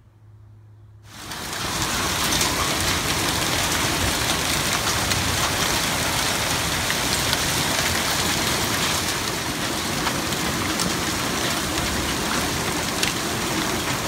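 Heavy rain pouring down, starting abruptly about a second in as a dense, steady hiss, with occasional sharp ticks of drops striking hard surfaces.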